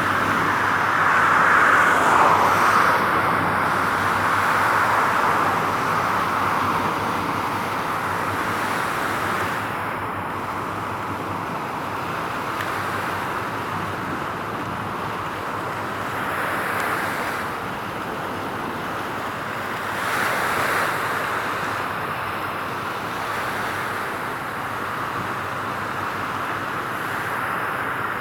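Steady road-traffic noise, with passing vehicles swelling louder about two seconds in and twice more past the middle.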